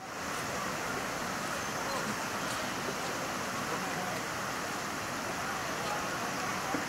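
Steady outdoor background noise with faint, indistinct people's voices.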